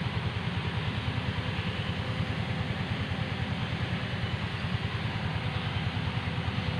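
Excavator's diesel engine running steadily, with a fast, even low throb.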